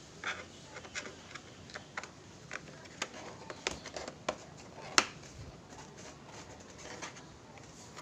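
Irregular light clicks and taps of hands handling the plastic case of an Acer Aspire 3 laptop as it is closed up, with a sharper click about five seconds in.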